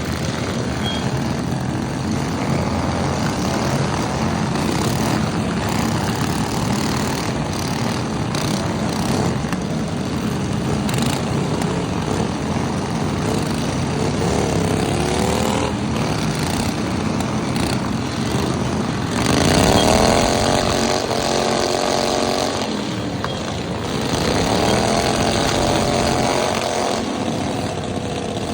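Small riding lawn mower engines running steadily, revving up and back down several times, loudest about twenty seconds in.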